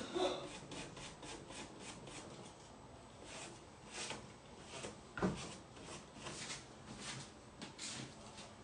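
A paintbrush stroking sealer over decoupage tissue paper on a wooden table top: quick, repeated hissing brush strokes about two a second, with a soft knock about halfway through.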